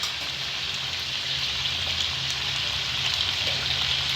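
Chicken frying in oil in a kadai, a steady sizzle: the moisture has cooked off and the oil has separated, so the pieces are frying dry in the oil.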